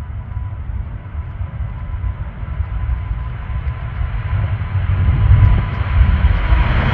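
Boeing 777-200's twin jet engines at takeoff thrust: a low rumble growing steadily louder as the airliner rolls down the runway, with a faint steady whine.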